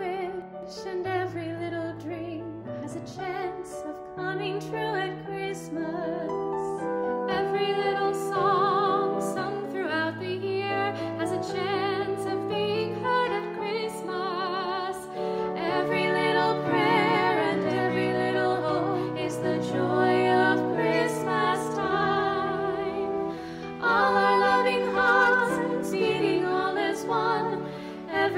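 Two women singing a Christmas song with vibrato over instrumental accompaniment, sometimes one voice alone and sometimes both together in harmony.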